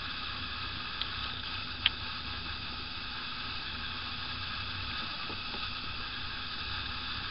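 Steady low hiss, with two short, sharp clicks about one and two seconds in.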